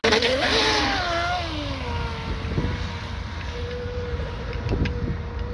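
Home-built RC speed boat's brushless electric motor (4074 2000kV) whining as the boat runs, over a hissing rush of spray. The whine falls in pitch over the first couple of seconds, then holds steady.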